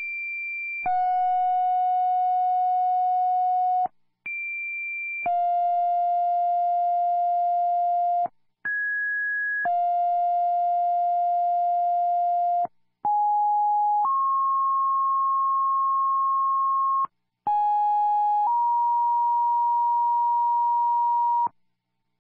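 Fire dispatch two-tone sequential paging tones heard over a scanner radio. Five pages follow one another, each a short tone of about a second and then a steady tone of different pitch for about three seconds, with brief gaps between them. These tones set off the pagers of the fire departments being called out.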